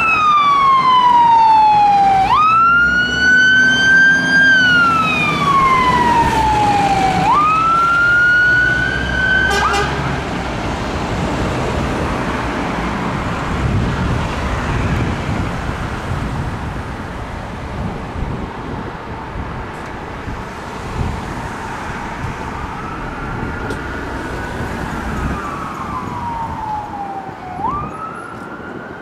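Scania fire engine's siren wailing in slow rising and falling sweeps, each about five seconds long, over the low rumble of its engine as it pulls away. About ten seconds in the siren cuts out, leaving traffic noise, and a siren wails faintly again near the end.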